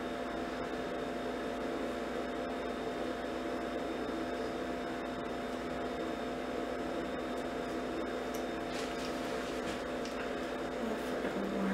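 Steady hum of an ice machine running, several constant pitches over an even hiss. Faint rustles and clicks of the doll's clothing being handled come about eight to ten seconds in.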